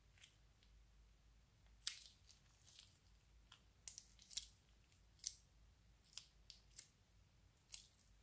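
Slime with clear beads being squeezed out of a plastic piping bag, making about a dozen irregular sharp crackles and clicks.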